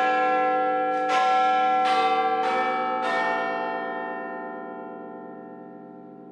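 Bells struck about five times in quick succession, each strike ringing over the last, then ringing on and slowly fading away.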